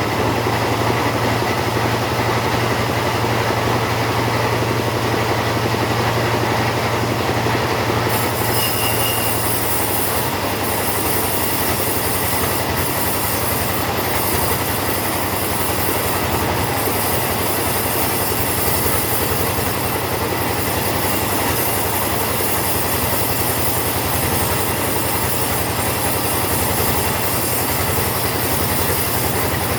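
Chainsaw running steadily under load while cutting teak, a loud continuous buzz. Its note changes about eight seconds in.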